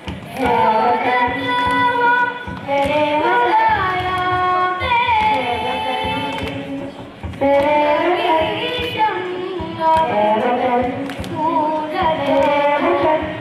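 A group of children singing together into microphones, in held melodic phrases broken by short breaths.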